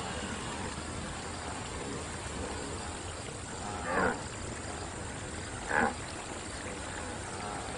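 Two short grunting calls from cartoon wildebeest, the second about two seconds after the first, over a steady faint ambient hiss.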